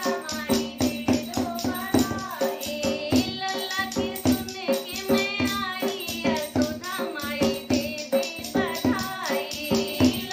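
Women singing a Hindi Krishna badhai folk song, led by one voice, over a fast, even beat of hand percussion: metal clinking from a spoon and the strokes of a dholak drum.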